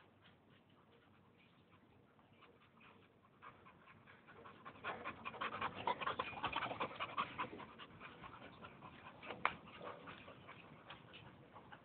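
A white boxer dog panting close by, with quick clicking of its claws and paws on steel stair treads as it comes down, starting about four seconds in and loudest in the middle; one sharper click near the end.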